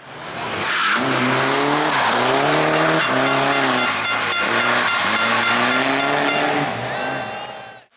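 Competition car engine accelerating hard through the gears: the pitch climbs and drops back at each upshift, several times in quick succession, then it eases and fades near the end.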